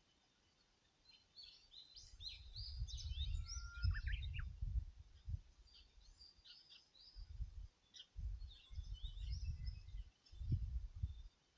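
Small birds chirping and singing in quick, scattered phrases, busiest about two to five seconds in and again around eight to ten seconds. Irregular low gusts of wind buffet the microphone and are louder than the birds.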